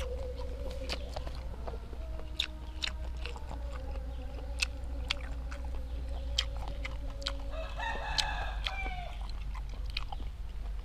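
A rooster crows once, about three quarters of the way through, over a run of sharp clicks and smacks from close-up chewing of grilled apple snails.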